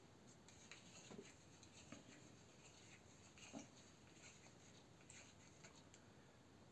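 Near silence: room tone with a few faint rustles and soft clicks.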